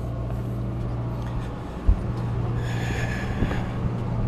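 Steady low hum of a sport-fishing boat's engine running, with a sharp knock about two seconds in and a brief high-pitched squeal about three seconds in.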